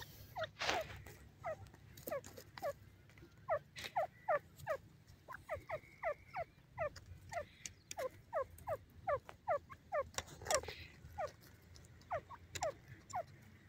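Grey francolin giving runs of soft, short downward-sliding call notes, about three or four a second, with brief pauses between runs. A couple of louder scratchy rustles come through, about a second in and again near ten seconds.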